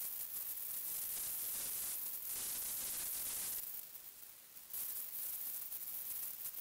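Steady high hiss like static, dropping away for about a second midway, then returning.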